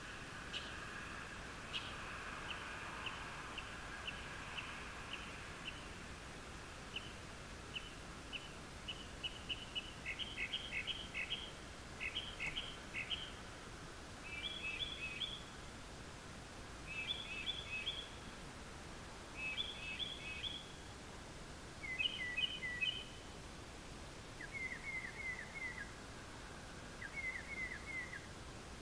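Unidentified birds chirping at night with short high notes, spaced at first, then quickening into clusters of rapid chirps about a second long every few seconds. Near the end the clusters turn lower, with falling notes.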